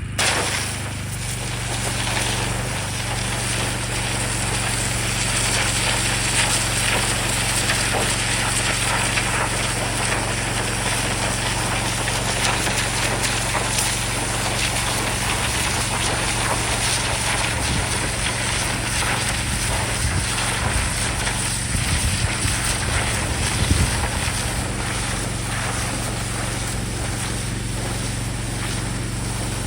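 Gas-engine 4200 psi pressure washer running steadily, with the hiss of its zero-degree jet blasting into soil to cut a planting trench.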